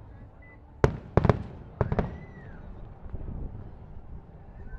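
Fireworks display: a quick run of about five sharp bangs from bursting shells, starting just under a second in and over by about two seconds.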